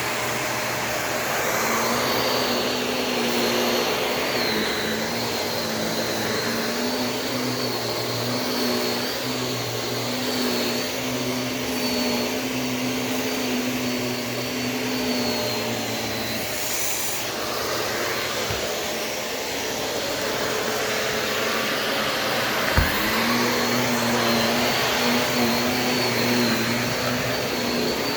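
Shark Navigator DLX upright vacuum cleaner running steadily while being pushed over carpet, its motor whine dipping in pitch briefly a few times. A single sharp knock comes near the end.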